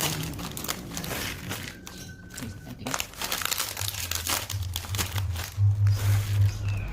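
Plastic snack packet crinkling and crackling as it is handled, in many quick irregular crackles. A low steady hum comes in over the second half.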